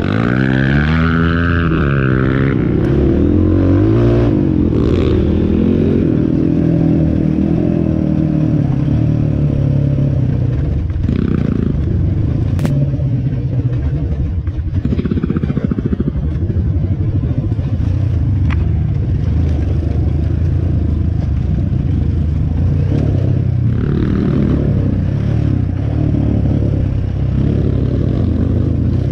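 Dirt bike engine revving up and down at first, then running under changing throttle as the bike is ridden along a rough dirt trail, with clatter from the bike over the ruts.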